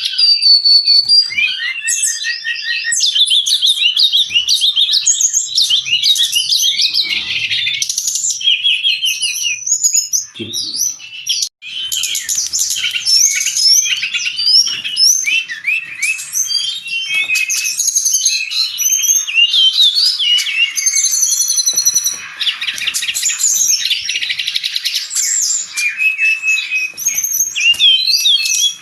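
Brown-chested jungle flycatcher singing vigorously: a fast, unbroken stream of varied high chirps, trills and short whistled notes. There is a brief break about eleven seconds in.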